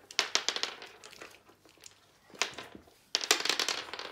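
Crinkling and crackling of an Easter candy wrapper being handled, in three bouts: one at the start, a short one about two and a half seconds in, and a longer one near the end.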